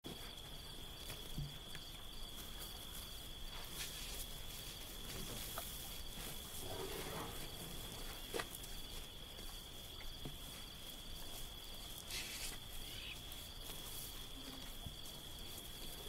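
Steady high-pitched insect trill, like crickets, held throughout with a fainter pulsing call just above it, over open-air ambience and a few faint ticks.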